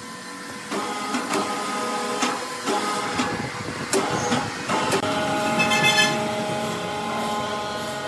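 Sawmill machinery running with a steady whine, broken by several sharp knocks and a brief rattle.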